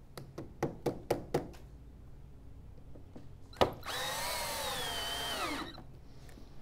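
Cordless drill driving a finish screw into a composite fascia board, its motor running for under two seconds with a sagging pitch that falls away as the screw seats. It is preceded by a few sharp clicks, with a louder click just before the motor starts.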